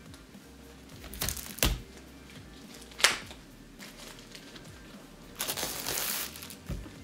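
Cardboard packaging handled by hand: a few short rustles and one sharp click as the box is opened, then about a second of crinkling near the end as clear plastic wrap is peeled off the box.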